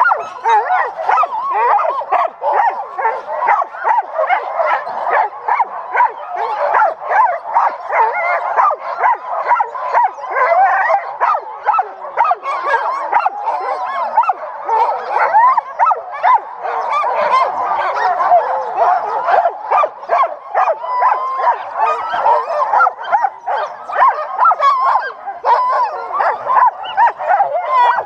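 A team of sled dogs in harness barking, yipping and howling all at once, a continuous chorus of many overlapping calls: the excited clamour of dogs straining to go before a sled launch.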